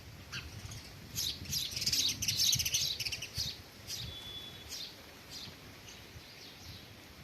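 House sparrows chirping: a dense run of rapid chirps about one to three seconds in, then scattered single chirps.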